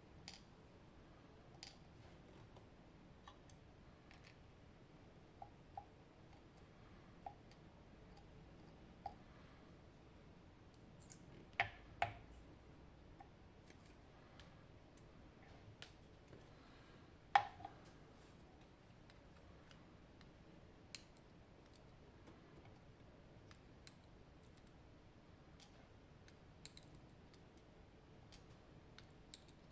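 Faint, irregular small clicks and taps of a lock cylinder's parts being handled as an ASSA Maximum+ Restricted lock is taken apart. There is a pair of louder knocks about twelve seconds in and a sharper one a few seconds later.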